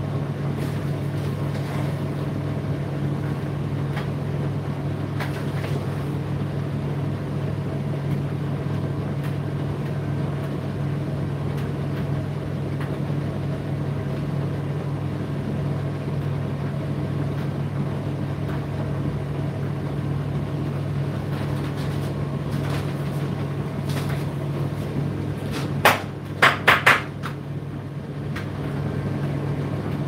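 Indesit IDC8T3 condenser tumble dryer running with a steady low hum from its motor and turning drum. Near the end there is a quick run of about four sharp knocks.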